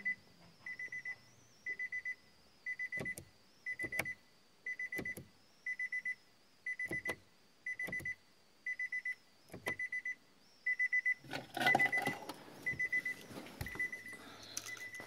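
A Nissan car's interior warning chime beeping steadily at one pitch, a little under two beeps a second, with sharp clicks about once a second. A louder rustle and clatter of handling comes about three-quarters of the way through.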